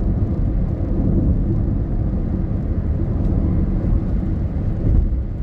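Steady low rumble of a car cruising at highway speed, heard from inside the cabin: tyre and road noise with the engine running underneath.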